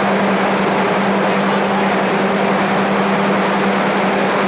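Passenger train coaches starting to roll past a station platform: an even wide noise of the moving train with a steady low hum running under it.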